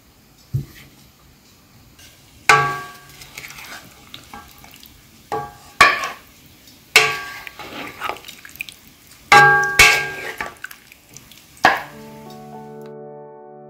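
Tableware clinking as stew is served from a pan: about six sharp knocks, each with a short metallic ring. Soft piano music begins near the end.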